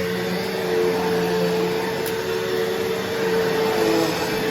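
Bissell CleanView Revolution Deluxe upright vacuum running steadily, its motor giving an even whine over the rush of airflow.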